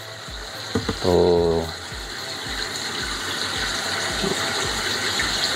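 Steady rush of water circulating through a koi pond's biological filter chambers while the pond pump runs, growing slowly louder.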